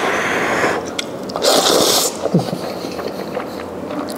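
Close-miked mukbang eating sounds: a loud, hissy slurp of black bean noodles (jajangmyeon) about a second and a half in, between softer chewing and small wet clicks.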